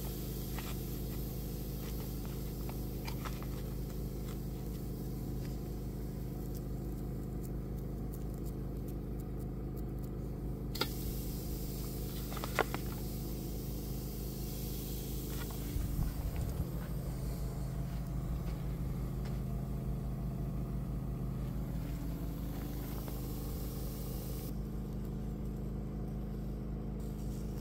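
Champion 4650 inverter generator running at a steady engine hum. A few sharp clicks near the middle and a short clatter a little after.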